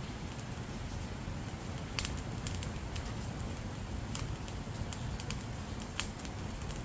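Wood fire burning, with a steady low rustle of flames and irregular sharp crackles and pops from the burning firewood, two of them louder, about two and six seconds in.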